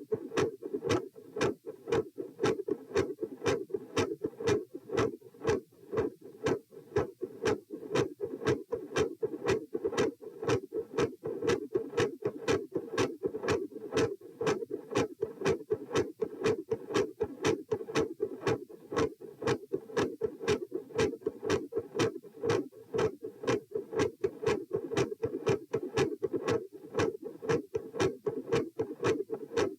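Heart sounds heard through a stethoscope over the pulmonic area: a quick, even run of beats, with the second heart sound (S2) consistently loud and the first (S1) varying in loudness.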